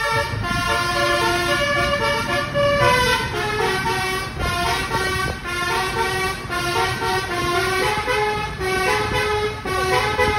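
Tour bus's basuri melodic horn playing a tune, a run of short held notes stepping up and down in pitch, over engine and road rumble.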